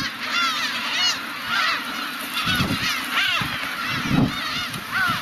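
A colony of black-tailed gulls calling, many overlapping mewing cries at once, with a few low thumps underneath.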